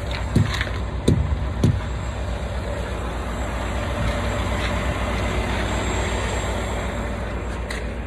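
Diesel semi-truck engine idling steadily, with three low thumps in the first two seconds.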